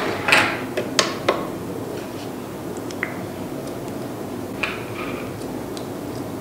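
A few light clicks and taps from handling small hard objects, several close together about a second in and a couple more later, over a steady background hiss.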